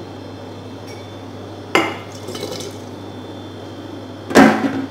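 Brined olives being ladled with a metal ladle from an olive tin into a glass jar: two sudden wet clattering splashes, one about two seconds in and a louder one near the end.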